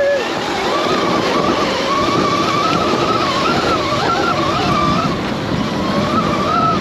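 Electric off-road motorcycle's motor whine, rising and falling in pitch as the throttle and speed change, over a steady rush of wind and tyres on loose dirt.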